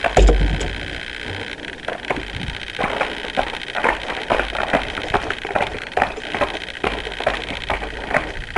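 Skeleton sled sliding on the ice track with its steel runners scraping and rattling. A heavy bump comes just after the start, then irregular knocks and scrapes over a steady hiss.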